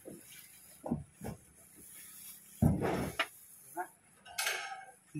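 A metal-framed plywood work table being handled and moved: a couple of short knocks, then one louder scraping bang about two and a half seconds in.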